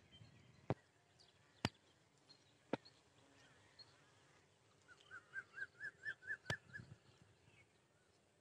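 A bird calling a quick run of about nine short rising notes, about five a second, around the middle, with faint chirps of other birds. Three or four sharp clicks stand out earlier and just after the run.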